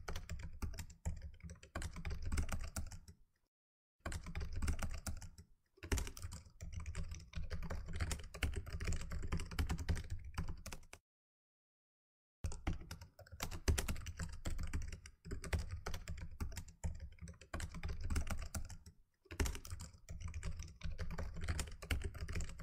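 Typing sound effect: runs of rapid keyboard keystrokes with short pauses, the longest about a second and a half in the middle, going with text being typed out on screen.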